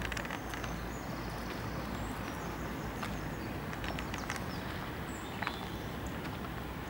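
Footsteps crunching on a sandy dirt path at walking pace, over a steady outdoor background hiss, with a few short bird chirps.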